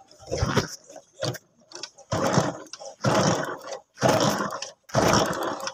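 Small single-cylinder motorcycle being kick-started over and over, about once a second, each kick cranking the engine briefly without it catching.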